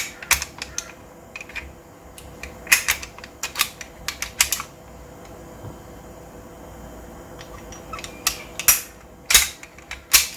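Sharp clicks and clacks of a Golden Eagle Hi-Capa 4.3 gas blowback pistol's parts being handled and fitted during reassembly. They come in a cluster over the first few seconds and again near the end, with a quiet stretch between.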